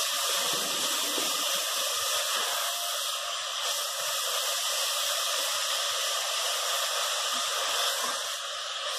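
Ground beef sizzling steadily as it fries in a pot with oil, onion and garlic, stirred with a wooden spoon.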